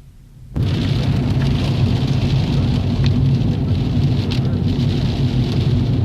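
A loud, steady rushing of water, like heavy rain, over a low rumble. It starts suddenly about half a second in and cuts off near the end.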